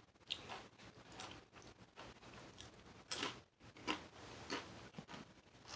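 Quiet chewing of a sandwich, with scattered soft mouth clicks and smacks.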